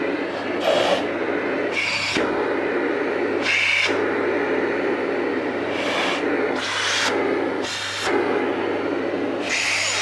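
Amazon Basics 700 W bagless cylinder vacuum cleaner running at full suction, a steady motor whirr with a low hum. About seven times the airflow hiss rises in brief surges as a hand is held to the floor brush.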